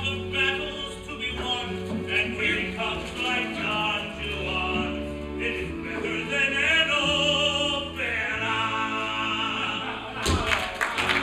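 Live musical-theatre singing with the orchestra: a voice sings wavering, sustained lines over steady held chords. Near the end a sudden loud accent starts a busier passage.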